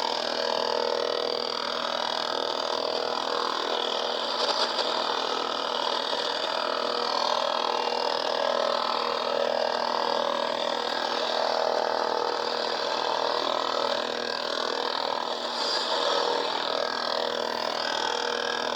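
Shortwave receiver audio from an Icom IC-735: a steady bed of static and hiss with faint steady tones and garbled, indistinct signals.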